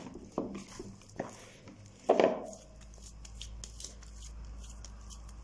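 Oiled hands kneading soft dough in a bowl: a few soft thumps and squelches as the dough is pressed and folded against the bowl, the loudest about two seconds in, then quieter sticky handling.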